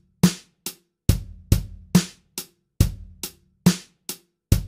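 Drum-kit backing beat, kick, snare and hi-hat, with evenly spaced sharp hits about twice a second, counting in before the song begins.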